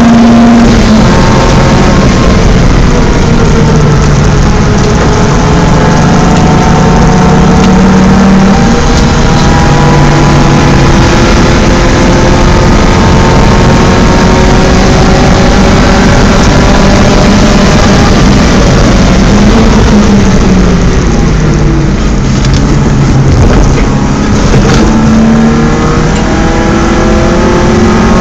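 BMW 318is four-cylinder engine driven hard on a race circuit. Its note climbs slowly under load and dips at gear changes, with heavy wind and road noise mixed in.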